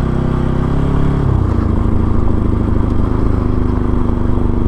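Bajaj Pulsar NS200's single-cylinder engine running under way. The revs fall about a second in, then the engine holds steady at the lower revs.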